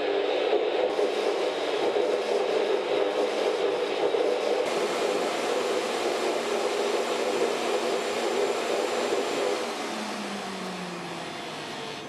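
Electric kitchen-appliance motors of a hand-mixer and blender drum machine running together in a loud, dense whir. Just under ten seconds in the level drops, and one motor winds down with a falling pitch.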